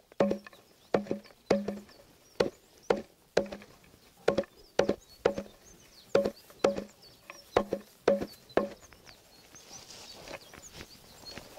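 Hand axe chopping fresh green forage into short pieces for silage: sharp, regular blows, about two a second, that stop about three-quarters of the way through.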